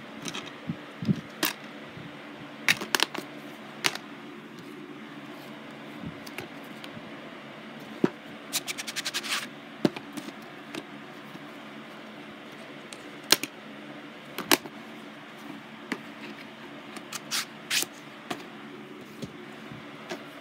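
Plastic DVD cases handled and set down on carpet: scattered clicks, taps and scrapes, with a quick run of clicking about eight to nine seconds in, over a steady low hum.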